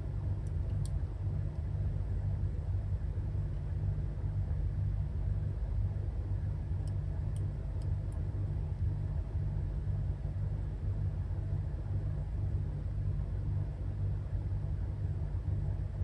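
A steady low rumble, with a few faint clicks about half a second in and again around seven to eight seconds in.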